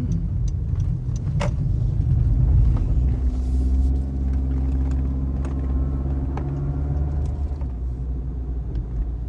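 Car engine running, heard from inside the vehicle: a low rumble that settles about three seconds in into a steady, even engine hum.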